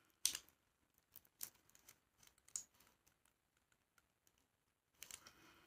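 Faint, scattered clicks and taps from a small serum dropper bottle being handled and its cap twisted open, a handful of separate ticks with near silence between them.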